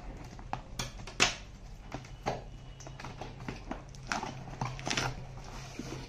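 Scissors cutting the packing tape on a cardboard carton, then the carton being opened and a foam-wrapped bowl pulled out: a run of irregular snips, scrapes, rustles and knocks, the loudest about a second in.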